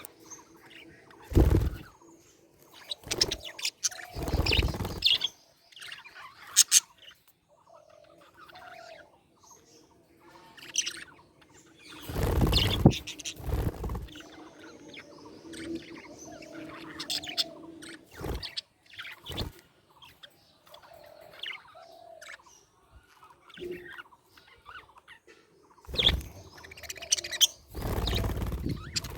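Budgerigars chirping and chattering in quick, short high chirps, broken several times by louder noisy rustling bursts.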